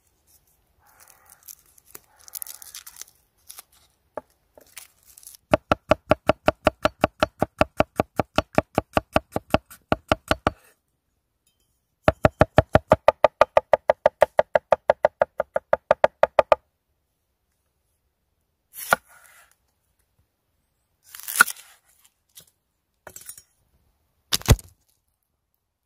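Garlic skins being peeled and crinkled, then a cleaver chopping garlic on a wooden board in two long runs of rapid, even strokes, about eight a second, each a sharp knock with a slight ring. A few separate sharp knocks and crackles near the end.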